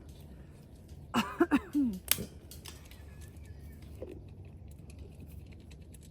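A goat eating its grain treat: faint scattered crunching and clicking, with a short pitched vocal sound about a second in followed by a sharp click.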